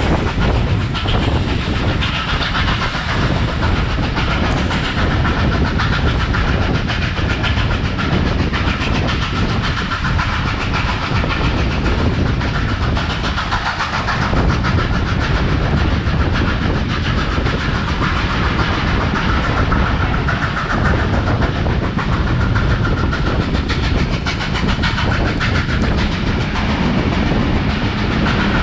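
Passenger train hauled by steam locomotive 3801 running along the line: a steady rumble and clatter of wheels on the track.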